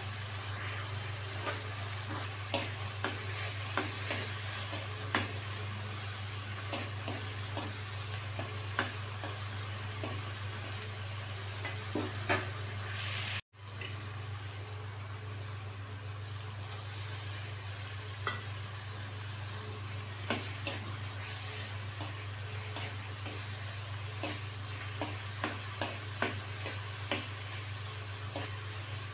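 Onion-tomato masala with spices sizzling in oil in a metal kadhai, stirred with a metal ladle that scrapes and clicks against the pan, over a steady low hum. The sound cuts out for an instant about halfway through.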